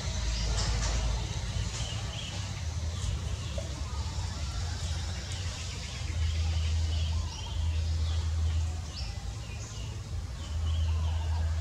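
Outdoor forest ambience: a low, uneven rumble that swells and fades, with many short, high chirping calls repeating throughout.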